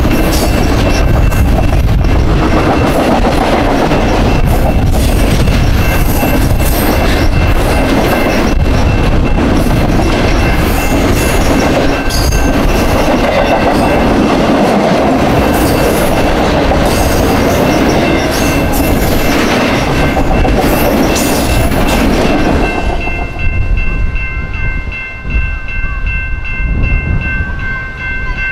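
A long train's cars roll past close by with loud, steady wheel-on-rail clatter, under the steady ringing of the grade-crossing bell. A little after twenty seconds the end of the train passes and the rolling noise falls away, leaving the crossing bell ringing.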